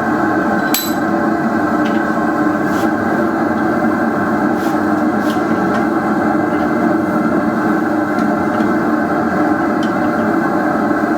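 A forge running with a loud, steady noise. A single light metallic ping rings out about a second in, with a few faint clicks scattered after it.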